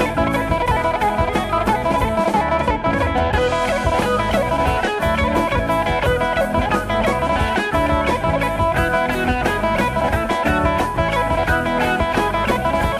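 Gospel band playing an instrumental passage: guitar over a drum kit keeping a steady beat, with no singing.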